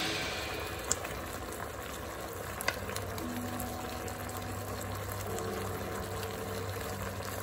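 Beef in oyster-sauce gravy simmering in a wok under fresh bok choy, bubbling and sizzling steadily, with a couple of light ticks.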